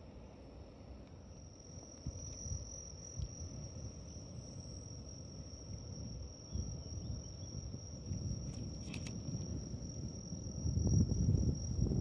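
Insects trilling in one steady, unbroken high tone, over a low rumble of wind and water noise that grows louder near the end.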